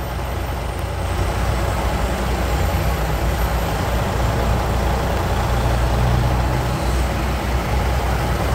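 Heavy vehicle engines running in slow highway traffic: a steady low rumble with a hiss of road noise over it, which gets suddenly louder right at the start.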